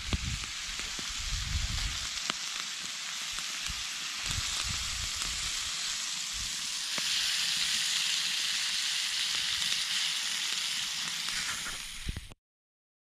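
Moose meat frying in fat in a skillet over a campfire: a steady sizzle that grows louder about seven seconds in, with a few clicks. It cuts off suddenly near the end.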